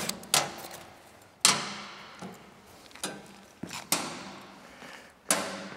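Screwdrivers working at stuck screws in the sheet-steel cabinet of an old P&H AC arc welder: several sharp metal clanks at irregular intervals, each ringing briefly in the steel case.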